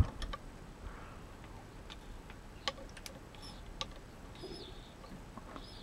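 A quiet workbench with a handful of faint, irregular small clicks and ticks, and a faint high bird chirp twice in the second half.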